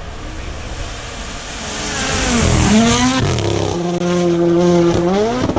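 Rally car engine growing louder as the car approaches under hard acceleration from about two seconds in. Its pitch climbs, holds steady for about a second, then climbs again near the end.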